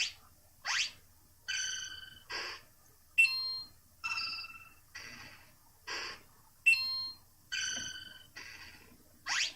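A quick string of short electronic sound clips played back one after another, about one a second and each different: pitched bleeps and chimes, and quick rising swoops. Each is a random sound fired by a press of the app's single play button.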